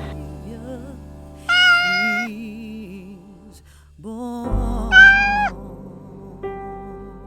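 A cat meowing twice, a few seconds apart, over soft background music.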